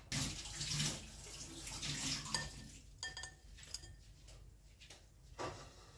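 Metal spoon scraping against a wire strainer and a ceramic plate as fried tofu cubes are pushed off onto the plate, with a few light metallic clinks about three seconds in.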